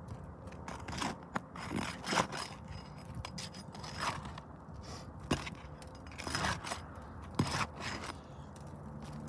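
Flat pry bar being worked under asphalt shingle tabs, prying them up and scraping against the gritty shingles in a string of short, irregular strokes.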